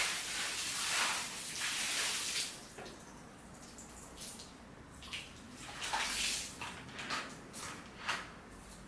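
Running water: a gush of water that starts abruptly and runs for about two and a half seconds, followed by a string of short splashes.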